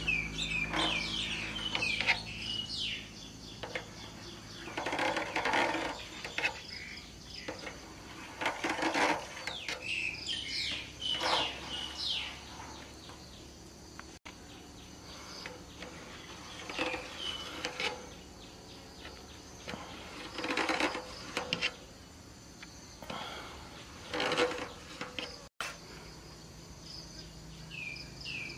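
Birds chirping in quick, repeated phrases, with several short scraping sounds a second or so long as a knife cuts a soft steamed rice cake on a steel tray.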